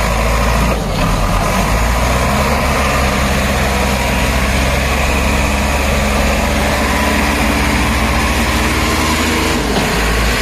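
Diesel engines of a Mahindra 585 DI tractor and a JCB 3DX backhoe loader running steadily as the tractor drags a loaded sugarcane trailer out of mud under heavy load; the engine note drops a little near the end.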